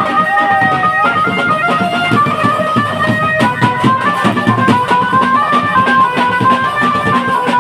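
Loud dance music played through loudspeakers: a bright melodic lead line of held notes over a steady drum beat.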